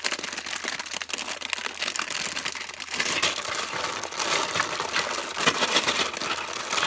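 Clear plastic bag full of LEGO Duplo bricks crinkling as hands handle and open it, getting louder about three seconds in.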